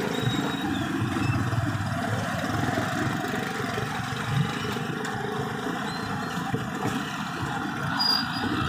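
Vehicle engine running steadily amid street traffic noise.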